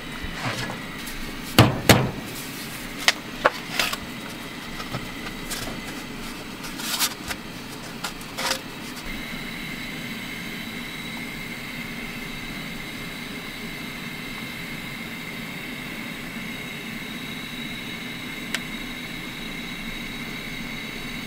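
Steady hiss of a Coleman Classic propane camp stove's burner under a pot of water at a rolling boil. A few sharp knocks and clicks come in the first several seconds.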